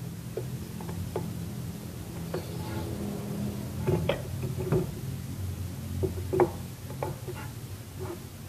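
Light irregular knocks and taps of a wooden board being set and shifted against the aluminium table and fence of a miter saw, over a steady low hum. The loudest knock comes about six and a half seconds in.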